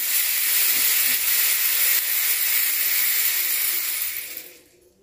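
Cardboard-tube rain stick tipped over, its filling of green lentils and small pasta shells cascading past the nails inside in a steady rushing hiss that fades away near the end as the last grains settle.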